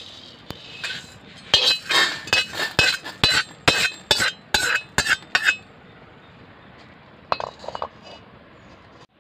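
Steel spatula scraping and clinking against an iron kadai and a steel plate as roasted dal and spice seeds are scraped out, a quick series of metal strokes that stops about five and a half seconds in. A few softer rubbing strokes follow near the end as the kadai is wiped with a cloth.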